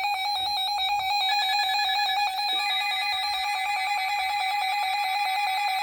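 Synthesized electronic tones: a steady high tone with a fast, even pulsing pattern over it, and further tone layers joining about a second in and again near the middle.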